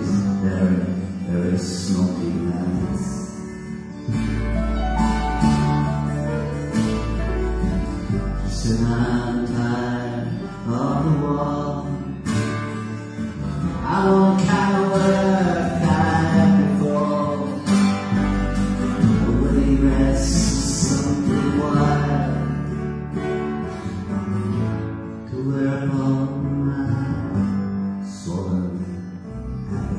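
Live acoustic band playing a slow song on guitars, piano and cello, with a voice singing the melody.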